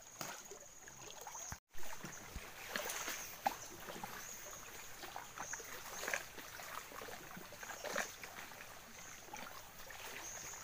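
Shallow water sloshing and lapping around people wading, with scattered small splashes and clicks. The sound drops out for a moment about a second and a half in.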